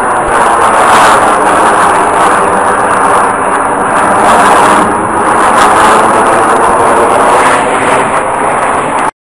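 Jet aircraft flying past in close formation: a steady, loud jet roar that cuts off abruptly near the end.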